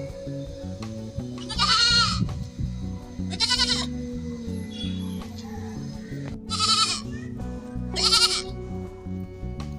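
Goats bleating four times, each a short quavering call, over steady background music.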